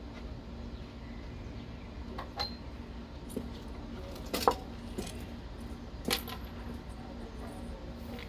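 A few light metallic clinks and knocks, the loudest about halfway through, over a steady low hum.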